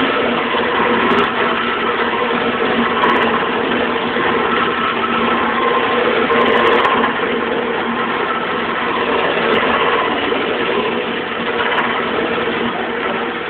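Wood lathe running steadily with a hand-held turning chisel cutting a spinning wooden spindle: the motor's steady hum under a continuous scraping hiss of the cut.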